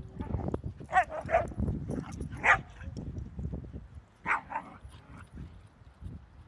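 A dog barking in short, high yips: three spread over the first couple of seconds, then two quick ones close together about four seconds in, over a low rumble.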